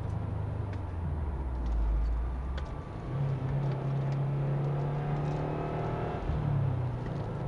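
Subaru WRX's turbocharged flat-four engine and road noise heard from inside the cabin. About three seconds in, the engine note steps up and climbs as the car accelerates through a bend.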